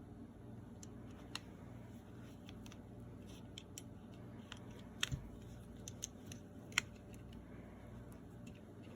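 Scattered small metal clicks and taps of Erma LA22 pistol parts being handled and fitted during reassembly, the loudest a quick pair about halfway through and a single sharp click soon after, over a faint steady low hum.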